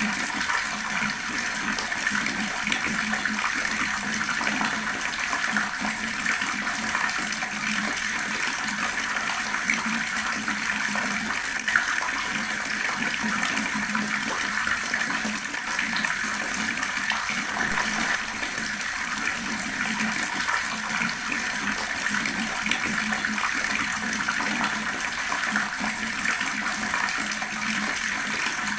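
Water running steadily from an outdoor tap, gurgling and splashing without pause. A single sharper splash or click stands out briefly near the middle.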